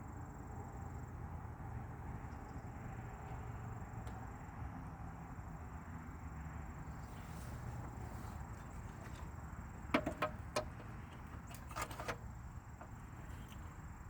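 Steady low background hum, broken about ten seconds in and again a couple of seconds later by a few sharp clicks and knocks as car parts are handled.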